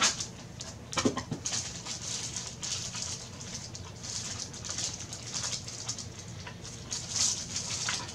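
Plastic wrapping crinkling and rustling as plastic-wrapped tripod legs are handled, with a sharp knock at the start and another about a second in.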